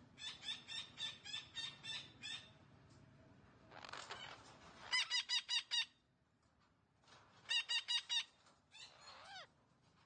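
Red-breasted parakeets calling: bursts of rapid, shrill repeated squawks, four to eight notes a burst at about six notes a second, the loudest bursts about five and seven and a half seconds in. A single harsh squawk comes about four seconds in and a falling call near the end.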